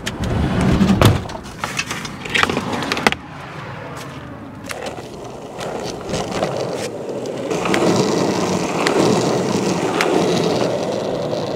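Van side door pulled shut with a few knocks and clunks in the first three seconds, then a skateboard rolling on an asphalt road: a steady wheel rumble that grows louder, with occasional clicks.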